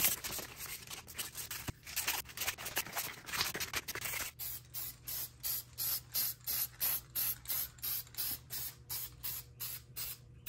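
Aerosol spray-paint can hissing as the Chevy bowtie emblem is sprayed black. The spraying is irregular for the first few seconds, then comes in short even bursts, about two or three a second.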